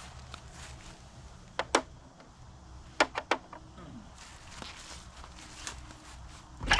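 Sharp clinks and knocks of tools and metal parts being handled while working on an outboard motor: one a little under two seconds in, a quick run of three about three seconds in, and a louder one near the end.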